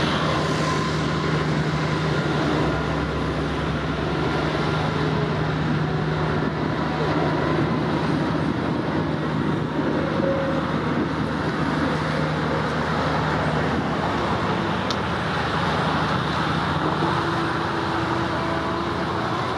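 Steady road traffic rumble, with a low steady hum underneath that stops about fourteen seconds in.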